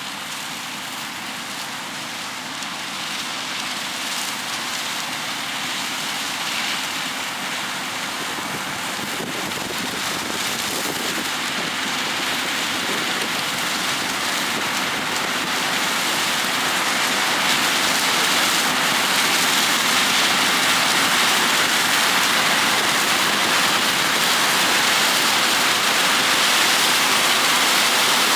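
Combine harvester running in the corn, a steady rushing noise with a faint even hum that grows gradually louder.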